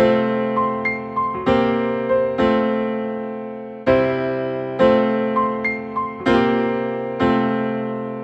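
Background music: electric piano playing slow, sustained chords struck about once a second, each fading away, with a few higher notes on top.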